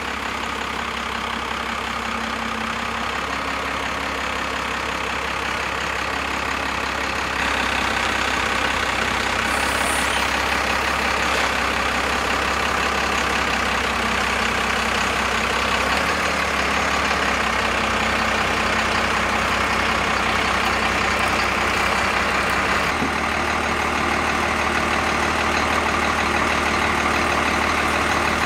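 Vehicle engine idling steadily, a little louder from about seven seconds in.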